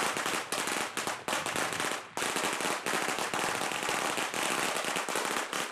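A hanging string of Chinese firecrackers going off in a fast, continuous crackle of sharp bangs, starting abruptly.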